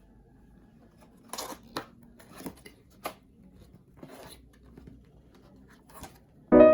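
Unboxing handling noises: a handful of short, separate scraping and clicking strokes against packaging, the kind made by cutting or opening a box. Piano music comes in loudly near the end.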